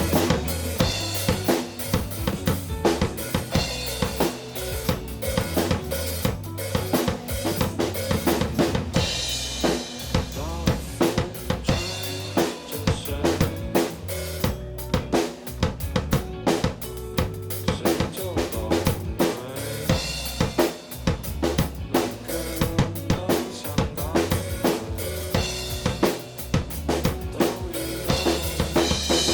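Rock band playing an instrumental passage with no vocals, led by a drum kit (snare, bass drum, rimshots and cymbals) over bass and other pitched instruments.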